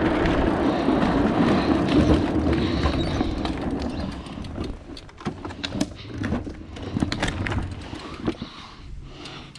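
Huffy Green Machine ride-on trike rolling over pavement: a steady rumble from its wheels, which drops away after about four seconds into lighter rattles and scattered clicks and knocks.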